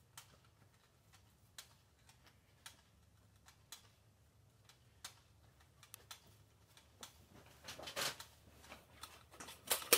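Faint, irregular clicks and taps, a second or so apart at first, then coming closer together, with a short rustle about eight seconds in.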